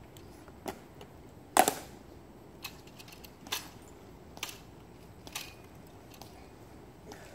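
Ceremonial guards' shoes clicking on a stone plaza as they march, about one sharp click a second, the loudest about one and a half seconds in.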